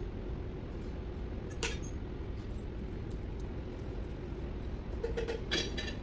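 Steady workshop background rumble, with a single sharp metallic clink about one and a half seconds in and several lighter clinks and knocks near the end, as of tools and parts handled around the engine.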